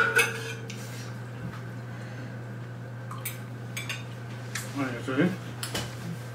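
Spoons and forks clinking and scraping on plates while eating, with a sharp clink right at the start and scattered lighter clinks after.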